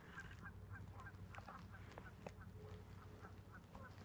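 Faint waterfowl calling in a quick, regular series of short notes, about four a second, over a low steady hum.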